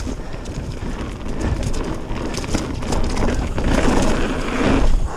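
Trek Remedy full-suspension mountain bike descending a rough dirt trail: tyres knocking over rocks and roots, with the chain and frame rattling in a quick run of clicks and clatters over a low wind rumble on the camera microphone. It gets louder and rougher about four seconds in.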